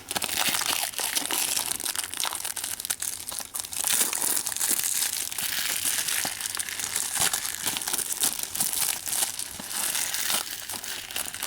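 Plastic shrink-wrap crinkling and tearing as it is pulled off a Blu-ray case, with many small crackles.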